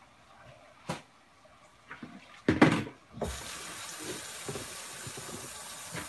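A brief clunk, then a kitchen faucet turned on, its water running in a steady hiss.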